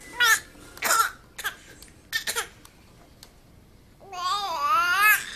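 A baby of about five and a half months making short put-on fake coughs, four or five quick bursts in the first two and a half seconds. About four seconds in comes a longer, wavering babble.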